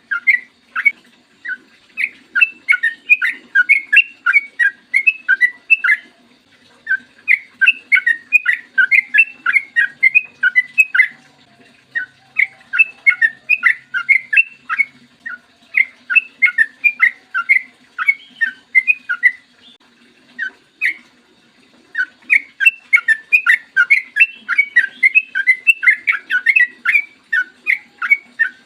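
Yellow-vented bulbul singing long, rapid chattering phrases of short bubbly whistled notes. Each phrase lasts a few seconds, with brief pauses between them.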